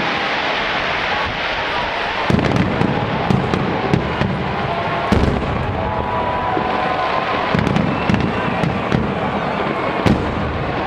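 Fireworks display going off: a continuous run of bangs and crackling, with heavier booms about two, five, eight and ten seconds in.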